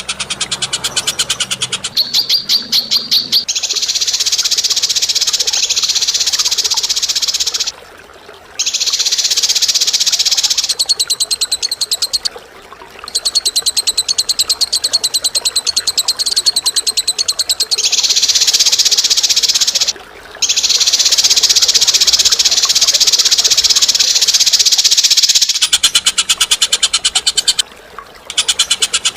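A bird's very fast, high-pitched chattering trill, sung in long unbroken runs of several seconds and stopping briefly four times. It opens with a few seconds of more separate, pulsing notes.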